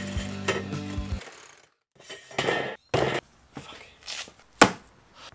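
Background music cuts off about a second in. It is followed by a few short scraping bursts and knocks as a cordless reciprocating saw is tried on a metal door-guide channel, with a sharp knock near the end as the loudest sound.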